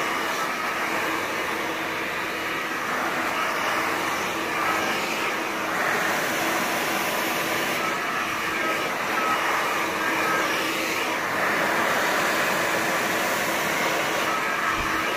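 Powerful 3500 turbo salon hair dryer running steadily on high: a constant rush of air with a steady motor hum underneath.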